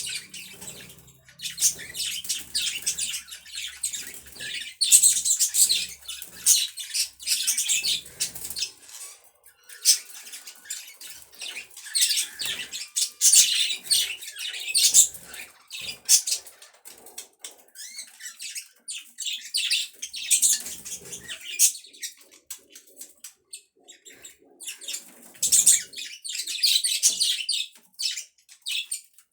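Pet budgerigars chattering: rapid, scratchy high-pitched chirps and warbles that come in bursts with short pauses between them.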